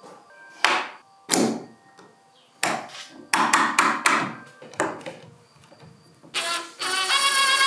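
A string of sharp knocks and clacks as steel bar clamps are set and tightened against oak boards on a workbench. Near the end a steady motor whine starts.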